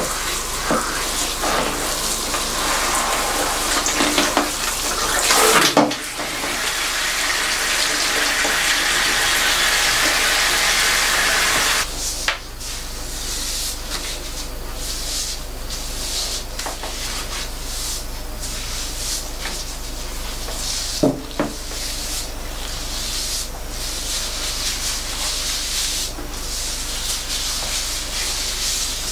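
Salon handheld rain shower head spraying water over hair into a shampoo bowl, a steady hiss that stops abruptly about twelve seconds in. After that, gloved hands work and squeeze the wet hair, making quieter wet rubbing sounds.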